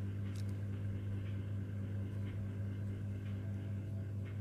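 A steady low electrical-sounding hum, with faint short high ticks or peeps about once a second.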